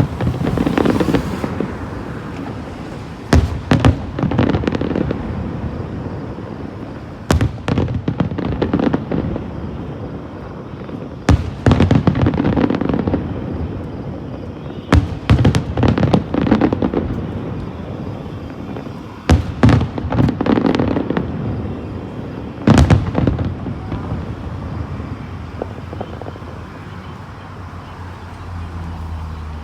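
Aerial fireworks display: volleys of sharp bangs about every four seconds, each followed by crackling and a rumbling echo that dies away, with a quieter rumble near the end.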